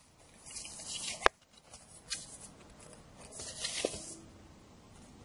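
Paper and cardboard packaging being handled: a few short rustles with a couple of light taps, about a second and a half in and again near four seconds.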